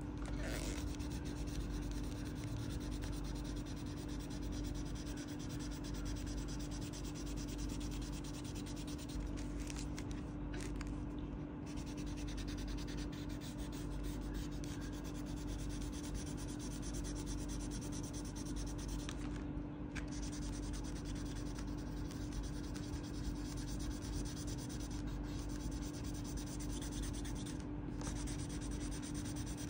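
Crayon rubbing back and forth on paper as sky and clouds are shaded in, a steady scratchy rubbing, over a constant low hum.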